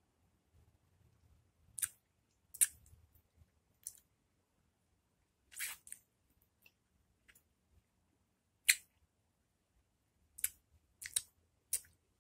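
Wet mouth sounds from sucking and chewing raw lemon slices: scattered short smacks and slurps, about eight, with quiet between them.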